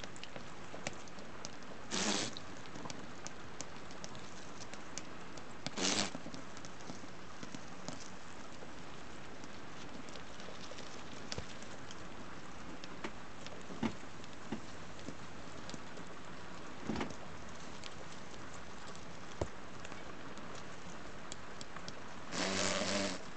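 Scattered small ticks and crackles of flower beetles scrambling over dry leaves and moss, over a steady hiss. Brief louder bursts come about 2 and 6 seconds in, and near the end a longer buzz as a beetle opens its wings to fly.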